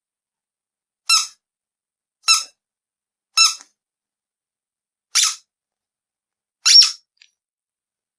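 Rubber duck squeezed five times, each squeeze a short, high squeak, at uneven intervals.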